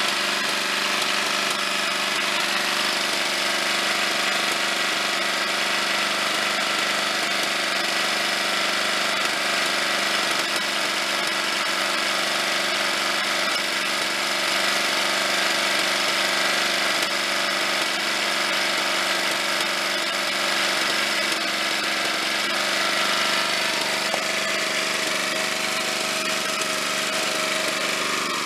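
A 1995 Briggs & Stratton 12.5 hp engine on a rear-engine riding mower runs steadily and is really loud. The owner believes the muffler's baffles are gone.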